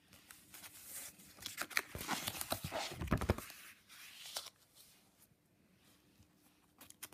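Thick collaged paper pages of a ring-bound junk journal being turned, a run of rustling and crackling with a dull thump about three seconds in, dying down after about four and a half seconds.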